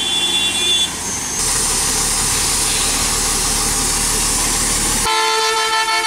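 Heavy lorry passing close by: a horn sounds near the start, then a loud steady rushing noise with a low rumble for a few seconds, cut off abruptly by another horn blast near the end.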